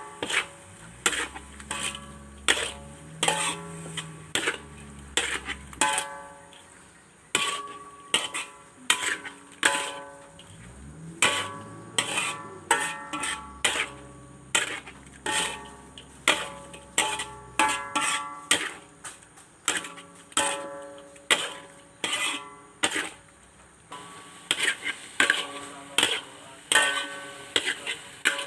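Background music: a melody of short, ringing bell-like notes, about two a second, with soft low sustained tones underneath in places.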